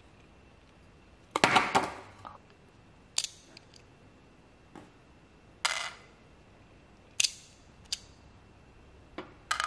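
Small hard plastic parts clicking and clattering as a micro RC car is lifted off its plastic display base and its roof cover is taken off: a short burst of clatter about a second and a half in, then about six single sharp clicks spread over the rest.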